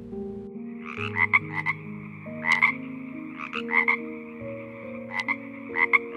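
European water frog croaking: short croaks in quick runs of two or three, repeating about once a second.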